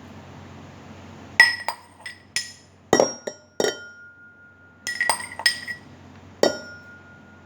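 A metal spoon clinking against a drinking glass of milk: about ten sharp, ringing taps in irregular groups, as biscuit pieces are pushed into the milk.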